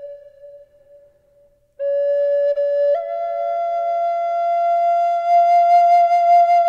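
Solo flute music: a held note fades away, and after a short pause the flute plays a long note that steps up to a higher one about three seconds in and holds it.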